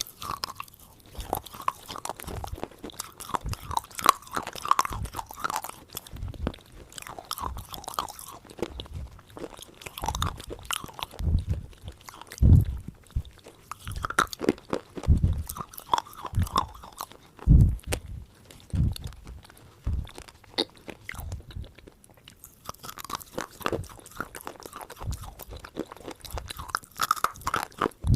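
Close-miked chewing and biting of crunchy food, with irregular crunches following one after another and some heavier low thumps.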